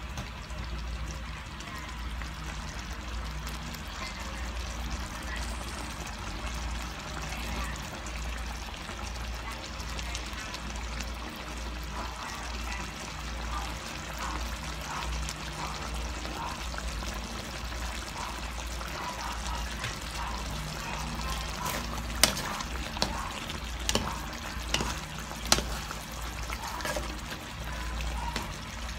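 Chicken and mushroom stew in a thick red sauce bubbling as it simmers in a pan on a gas burner, over a steady low hum. A few sharp clicks come near the end.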